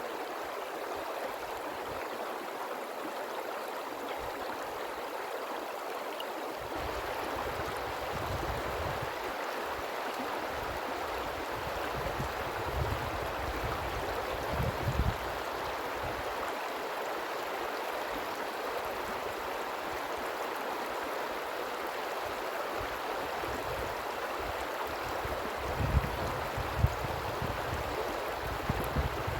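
River water flowing and rushing steadily. At times a low rumble comes up under the water noise, with a couple of short louder knocks near the end.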